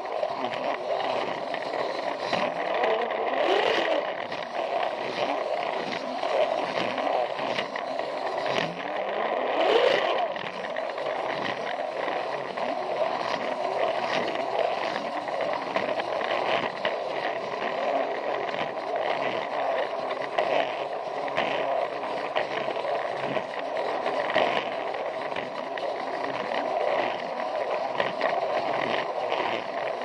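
Battery-powered Plarail toy train running along plastic track, picked up by a camera riding on it: a steady motor-and-gear whir with a dense run of clicks from the wheels on the track.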